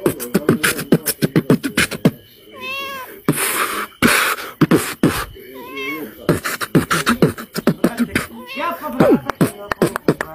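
Fast human beatboxing, a steady stream of clicks and kick- and snare-like mouth sounds. A cat's meows cut in about four times, roughly every three seconds.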